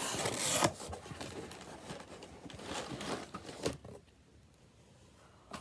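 Cardboard shipping box and its contents being handled and unpacked: rustling and scraping with a few sharp knocks, the last about three and a half seconds in, then much quieter.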